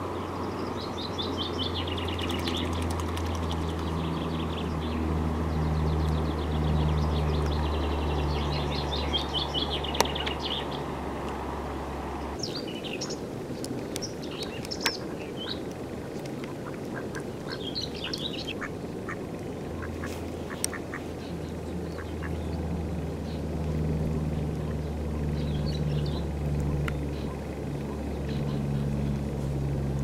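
Mallard ducks quacking over a steady low rumble, with fast high twittering trills from small birds at times.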